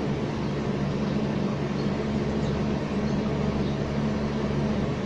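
Steady low machine hum over an even hiss, such as room or recording noise, with faint strokes of a marker writing on a whiteboard.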